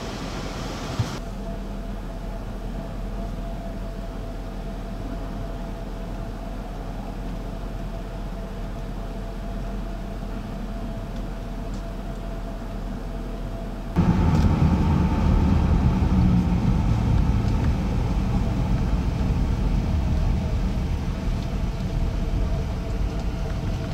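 Car cabin noise: a steady low engine and road hum, which becomes suddenly louder and deeper a little over halfway through.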